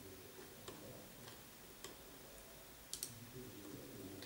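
A few faint, sharp clicks at uneven intervals, including a quick double click about three seconds in, in a quiet room: a computer mouse being clicked.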